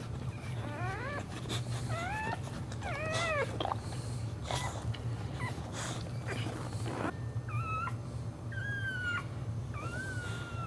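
Boxer dog whining: a quick run of short, high, rising whines, then a few longer, steadier whines near the end, over a steady low hum.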